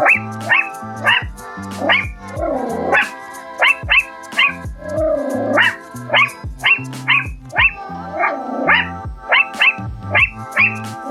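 Chihuahua barking in quick, sharp yaps, about two a second, with a longer drawn-out bark every few seconds. Background music plays underneath.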